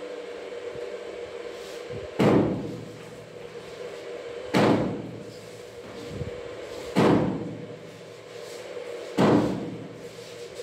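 Four loud knocks, evenly spaced about two and a half seconds apart, each with a short echo, over a steady hum.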